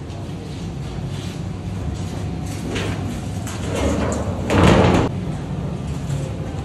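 Heavy steel lid of an in-ground pit oven being slid and dragged over its concrete rim, scraping, with the loudest grating scrape a little past the middle.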